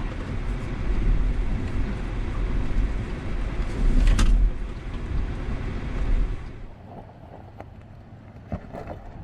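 Low rumble of a stopped off-road vehicle and wind on the microphone, with a single knock about four seconds in. About two-thirds of the way through it drops suddenly to a quieter background with a few light clicks.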